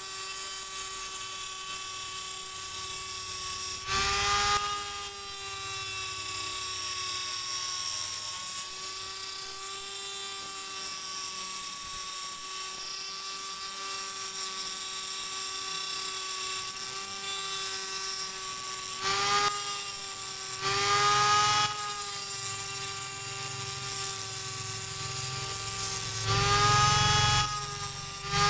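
NRT-PRO 903HD mini grinder spinning a small cutting disc on its flexible shaft with a steady high whine. About four times the disc bites into a rusty metal rod with a rasping grind, and the pitch dips briefly under the load.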